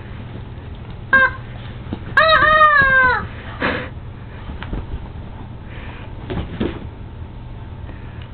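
Rubber chicken squeak toy squawking as a Boston terrier bites it: a short squeak about a second in, then a longer squawk of about a second that drops in pitch at the end.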